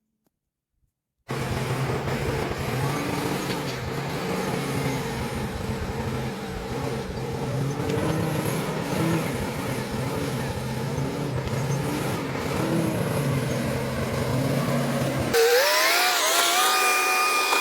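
A motor vehicle engine running steadily with a low hum, after about a second of silence at the start. About fifteen seconds in, it cuts to a different, higher-pitched whine that rises and wavers.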